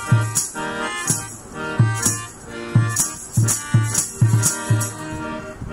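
A small live band plays a tune on accordion and a wind instrument, with a bass drum and a cymbal on top marking a steady beat of about two strokes a second. The playing breaks off near the end.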